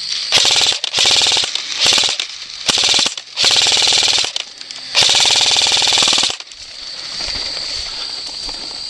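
Airsoft gun firing full-auto in about six bursts of rapid shots, some short and the longest more than a second, over the first six seconds or so.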